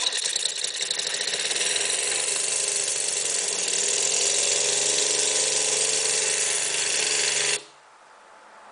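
Small gasoline engine with a GEET Pantone fuel processor starting and running steadily on a mostly water-based fuel mix. It cuts out abruptly for about a second near the end.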